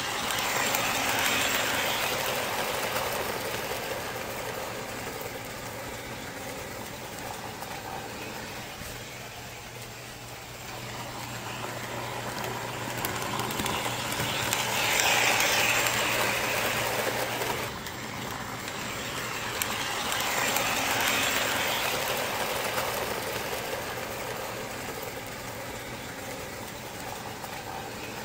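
Model trains running around a layout, the sound of their motors and wheels on the track growing louder each time a train passes close by: near the start, about halfway through, and again a few seconds later, over a steady low hum.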